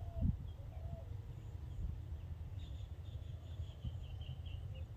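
Birds chirping over a steady low rumble of outdoor background noise. A soft low bump comes just after the start, and a run of quick, high chirps comes in about halfway through.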